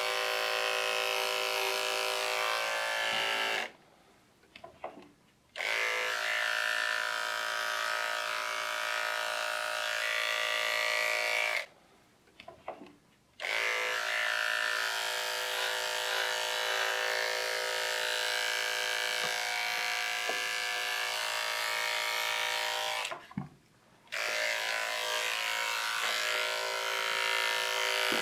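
Corded electric pet clipper running with a steady hum as it shaves a small dog's coat. The hum cuts out three times for a second or two before starting again.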